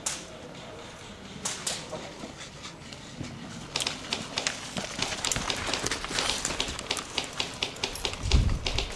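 Airsoft game sounds: two sharp clicks about a second and a half in, then from about four seconds a dense run of irregular crunching steps and clicks as someone moves quickly over rubble and grass. A loud low thump of wind or handling on the microphone comes near the end.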